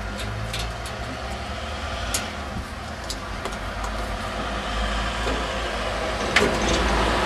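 Light clicks and knocks from a white powder-coated stainless steel gas meter housing being handled as its top lip is hooked over the backplate, with the clearest knocks about two seconds in and near the end. A steady low rumble runs underneath.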